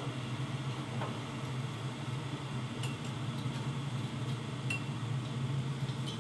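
A teaspoon clinking lightly against a glass sugar jar and a ceramic mug as sugar is spooned in: a few soft chinks a second or two apart, over a steady low hum.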